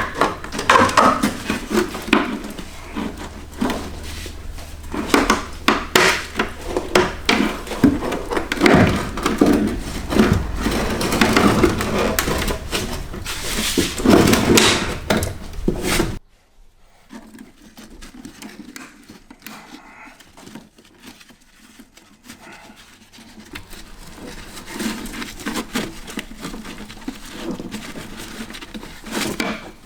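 Knocks, clanks and scraping of a steel fuel filler neck being worked loose and pulled out of a BMW E30's rear wheel arch. About halfway through it drops suddenly to quieter, sparser handling and rubbing.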